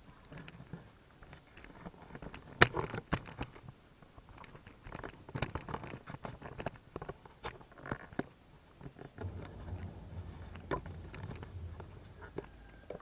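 Irregular footsteps and small knocks on a hard floor, with one sharper knock about two and a half seconds in. A low hum comes in about nine seconds in.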